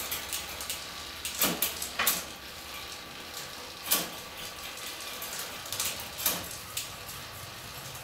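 Touring bike drivetrain turned by hand at the crank, the chain running steadily over a newly installed freewheel, with about half a dozen sharp clicks spread through it.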